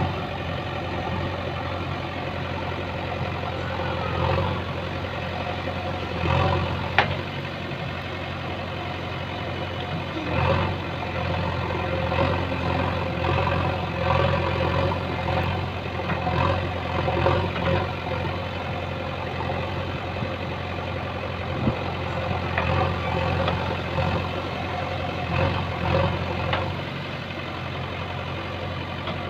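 JCB backhoe loader's diesel engine running steadily while the rear backhoe digs, swelling in level every few seconds as the hydraulics take load. A sharp metallic clank comes about seven seconds in.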